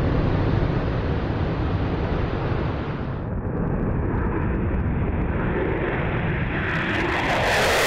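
F-16 fighter jet's engine running at full power in afterburner for takeoff, a dense, steady jet noise with deep rumble. It changes abruptly about three seconds in, and near the end grows louder and hissier as the jet passes.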